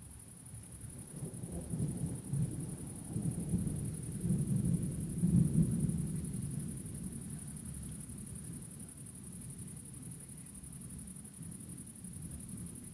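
Thunder: a low rolling rumble that builds over a few seconds, is loudest about five seconds in, then slowly dies away.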